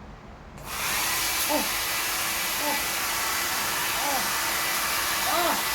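Hair dryer switched on about half a second in, then running steadily with a loud rush of air and a faint, even motor whine.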